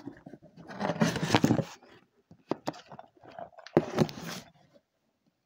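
Rustling and scraping handling noise with a few sharp clicks, in two bursts, as the recording phone is moved about and covered.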